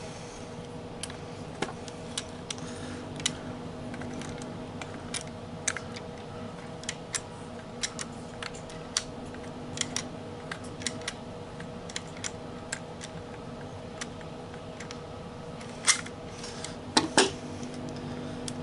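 Irregular sharp metallic clicks and snaps of groove joint pliers gripping and slipping on the side of a screw being worked out of a throttle body, the loudest near the end, over a steady background hum.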